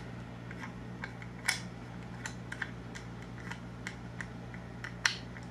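Scattered light clicks and taps of a precision screwdriver working on the metal housing of an Xduoo XD-05 portable DAC/amp. The two sharpest clicks come about a second and a half in and near the end, over a steady low hum.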